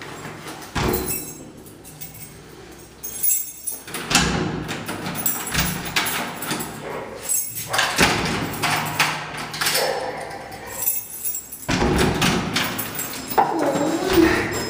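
Apartment door lock and handle worked, with repeated rattles, clicks and thumps as the door is opened. About 13 seconds in, a border collie's excited high whines start as it rushes in to greet its returning owner.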